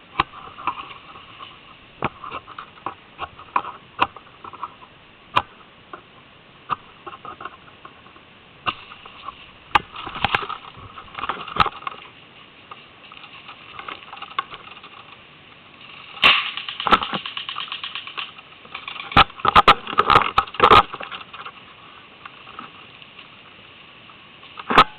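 Airsoft guns firing: scattered single shots and clicks, short clusters, and a rapid run of shots about sixteen seconds in. One sharp crack comes near the end.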